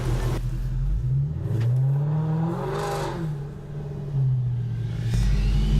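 Overfinch-modified Range Rover SVR's supercharged V8 accelerating with its valved exhaust open in loud mode. The engine note rises for about a second and a half, then eases off and falls, and a deep drone comes back near the end.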